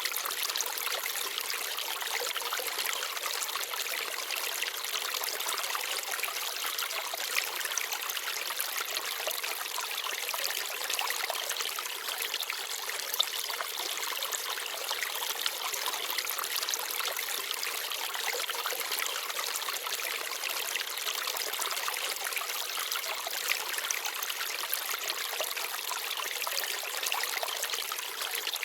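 Small forest stream babbling and trickling steadily over stones, with a few brief, sharper clicks on top of the flow.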